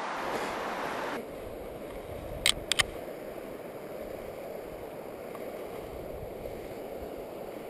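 River water running steadily, louder for the first second and then dropping off suddenly, with three sharp clicks about two and a half seconds in.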